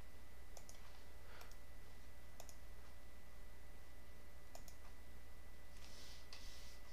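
Computer mouse buttons clicking a few times, about two seconds apart, over a steady low electrical hum.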